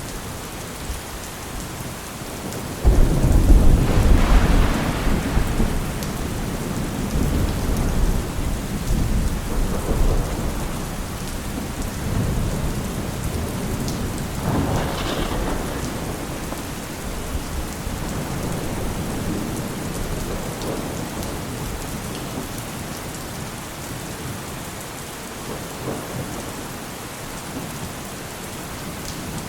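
Heavy rain falling steadily, with a loud rolling thunderclap about three seconds in that rumbles on for several seconds, and a second, fainter thunder crack and rumble about halfway through.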